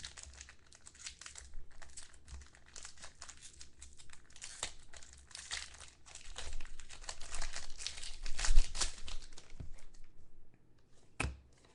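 Foil trading-card pack wrapper being torn open and crinkled, with dense rustling that is busiest in the second half, then a sharp tap near the end.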